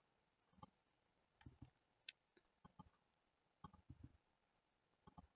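Near silence with about ten faint, scattered clicks from a computer mouse, some in quick pairs.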